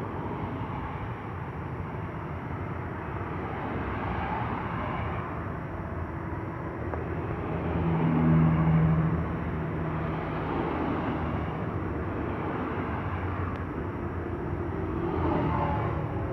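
Airliner engines running in a steady wash of noise, swelling to a peak with a low hum about halfway through, then easing back.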